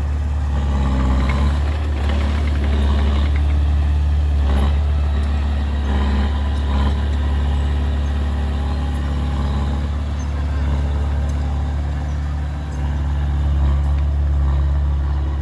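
Heavy diesel engine of earth-moving machinery running steadily with a deep drone, with a few short knocks around the middle.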